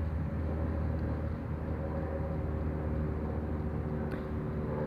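Steady low rumble of city traffic, an even engine drone with no single vehicle passing by.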